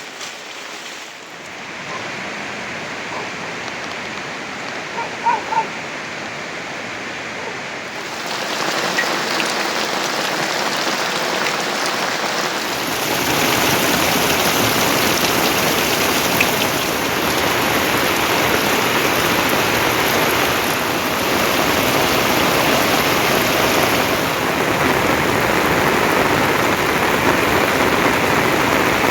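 Steady rainfall hiss that grows heavier in steps, about a second, eight seconds and thirteen seconds in.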